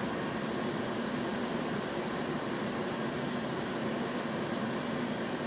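EcoFlow Delta portable power station's cooling fans running steadily at high speed under a heavy load of about 1400 watts from an electric kettle, a constant whir with a low hum, mixed with the kettle heating water toward the boil.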